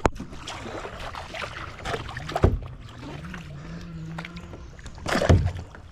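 Kayak paddle knocking against the kayak's hull while being worked in the water: a sharp knock at the start and two heavier dull thuds, about halfway and near the end, over light sloshing and dripping water.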